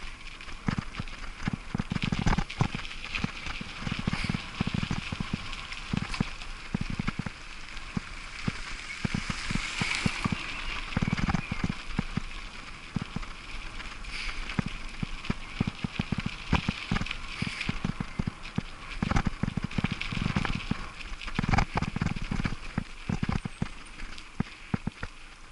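Bicycle riding over a bumpy dirt and gravel track: tyres crunching and the bike rattling and knocking with every bump, over a steady rush of wind noise.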